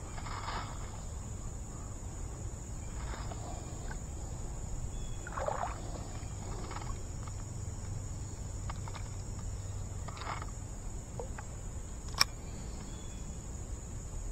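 Steady high-pitched chorus of insects such as crickets, with a few soft rustles from handling the spinning rod and reel and one sharp click about twelve seconds in.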